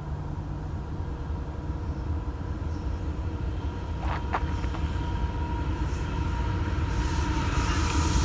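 Union Pacific GE diesel locomotives leading a freight train, approaching with a low engine rumble that grows steadily louder. A couple of brief clicks come about four seconds in, and a faint high whine builds toward the end.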